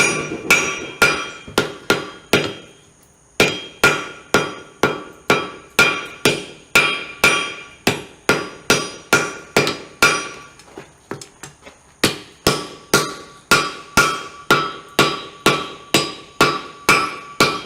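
Hand hammer striking a hot forge-welded axe head on an anvil, shaping it, in a steady rhythm of about two blows a second, each blow ringing. The hammering pauses briefly about three seconds in and slows for a moment around ten to twelve seconds in.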